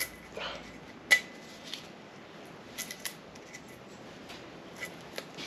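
Scattered light clicks and scrapes of a small flathead screwdriver and masking tape against a rotary engine's front cover as tape is picked out of holes and from around studs, with one sharp metallic tick about a second in.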